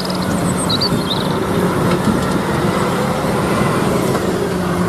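Steady rush of water spraying onto a toy cement mixer truck as the mud is washed off, over a constant low hum.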